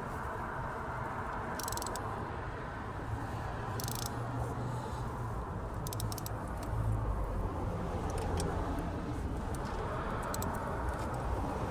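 Hand tools clicking and clinking on metal about six times, sharp and brief, over a steady low background rumble.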